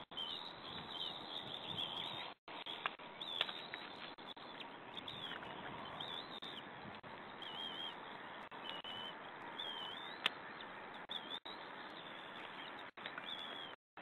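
Short high chirping bird calls scattered over a steady background hiss, with a few sharp clicks; the sound cuts out completely for a moment a few times.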